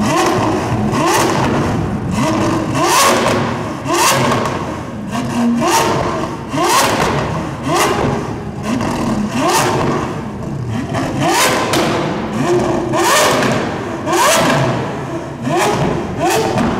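Lamborghini Aventador SV's V12 being revved hard in about a dozen quick blips, each a rising rev followed by sharp cracks and bangs from the exhaust. Echoing off the concrete of a car park, loud enough to leave ears ringing.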